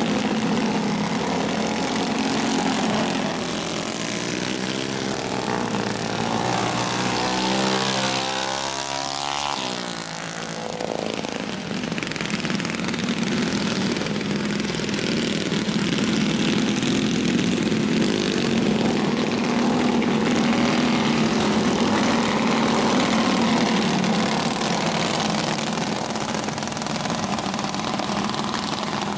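A pack of alcohol-burning racing kart engines running at race speed. Between about six and ten seconds in, one engine note climbs and then drops away sharply as a kart passes close by. After that the engines settle into a steady drone as the karts circle.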